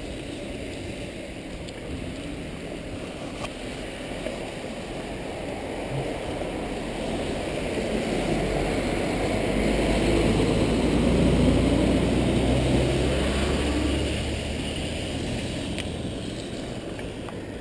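Steady hiss of tyres on wet pavement, riding beside a rain-wet road with traffic. About halfway through, a motor vehicle passes: its low engine hum and wet tyre spray swell up over several seconds, then fade away.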